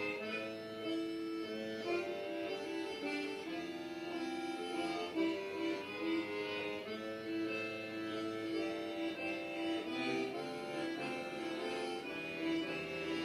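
Instrumental music of long held notes, several sounding together and changing pitch every second or so.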